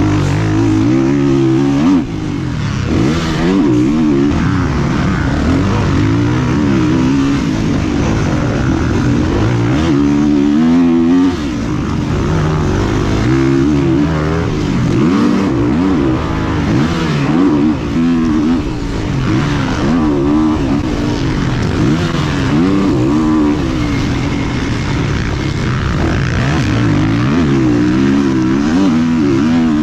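Motocross dirt bike engines revving up and down over and over, the pitch climbing and dropping every second or two.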